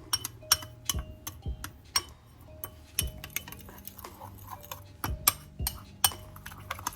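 A utensil stirring a small amount of thick chocolate chia mixture in a mixing bowl, clinking and tapping against the bowl in quick, irregular strokes.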